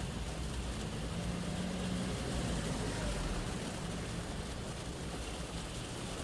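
Rain shower falling on a car, heard from inside the cabin as a steady hiss, with a low vehicle rumble from the road that is strongest a second or two in.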